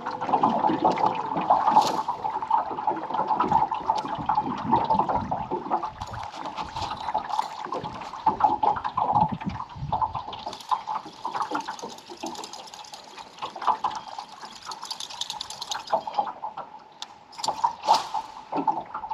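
Buzzbait retrieved across the surface, its spinning blade churning and gurgling the water with a rapid, steady clatter. About ten seconds in, a bass strikes at it and misses.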